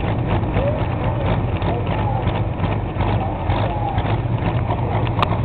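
Pulling tractor's engine running steadily close by, its low rumble unchanging, with a single sharp click near the end.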